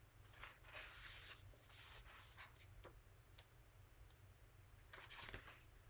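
Near silence: room tone with a steady low hum and a few faint soft rustles.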